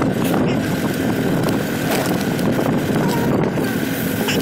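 Steady engine and road noise of a moving vehicle, heard from on board while it drives along.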